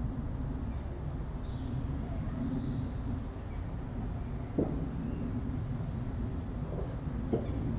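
Forest ambience: a steady low rumble of wind, with faint high bird chirps now and then and two brief sharp knocks, one about halfway through and one near the end.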